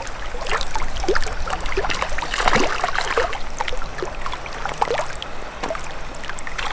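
Small waves lapping against a rocky lakeshore, an irregular run of little splashes over a steady wash of water.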